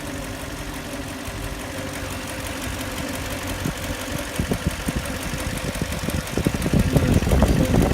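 Lexus LX470's 2UZ-FE V8 idling with a persistent knock from inside the engine, of unknown cause: the valves have been checked and need no adjustment, and one shop put it down to the camshafts. The knocking grows louder and rougher over the last few seconds.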